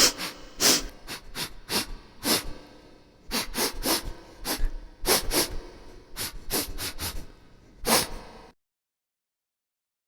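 Sound effects: an uneven run of about a dozen and a half short, sharp hits over eight seconds, then silence for the last second and a half.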